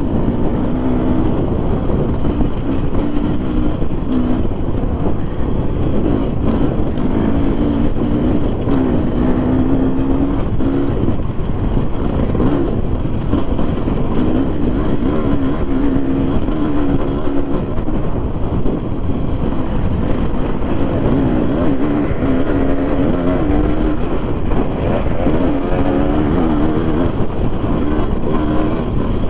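Enduro dirt bike engine, revving up and down again and again while it is ridden along an off-road trail, over a constant rough rumble.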